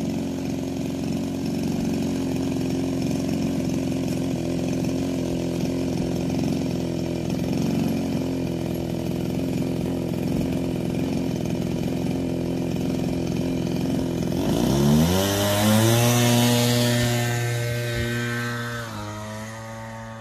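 Engine of a radio-controlled Piper Cub model airplane idling steadily, then opened up about 15 seconds in for the takeoff, its pitch rising quickly to a loud high run. The pitch dips a little near the end as the airborne model climbs away.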